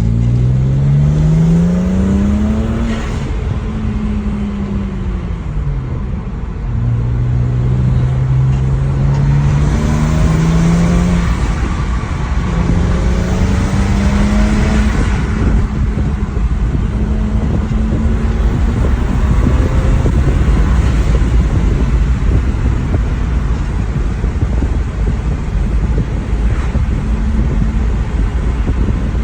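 BMW N54 twin-turbo inline-six on stock boost with open dual-cone intakes, heard from inside the car with the windows down. The engine pulls up through the revs, eases off a few seconds in, pulls again, then runs at fairly steady revs. A few short hisses fall between the pulls, fitting the TIAL blow-off valve venting when the throttle closes.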